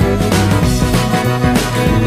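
Upbeat background music with guitar and a steady beat.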